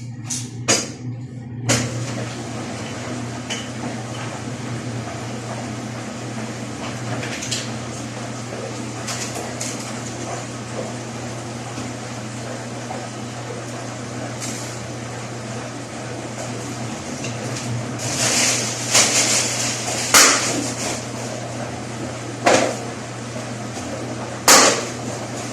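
Scattered knocks and clatter of hard parts being handled, most of them bunched together about three quarters of the way through, over a steady low hum.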